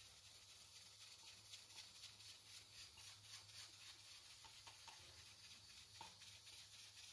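Near silence: faint room tone with a low hum and a few faint ticks late on.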